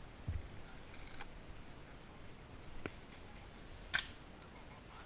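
Isolated sharp clacks of airsoft guns firing single shots, one about three seconds in and a louder one about a second later, over faint outdoor background with a soft low thump near the start.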